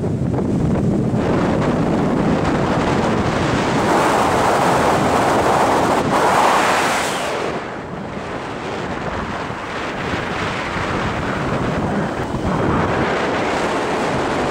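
Strong gusting wind of a brief mountain squall buffeting the microphone. The gusts swell about four seconds in, ease around eight seconds in, and pick up again near the end.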